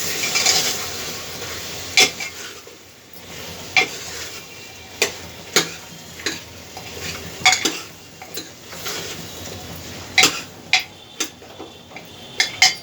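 A spoon stirring potatoes and peas in a sizzling masala in a pressure cooker. It knocks against the pot with about nine sharp clinks, irregularly spaced, over a steady frying hiss.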